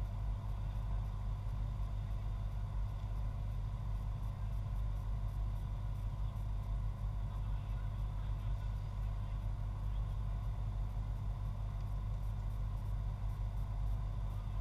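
Steady low rumble of background noise with a faint hum, unchanging throughout, with no distinct events.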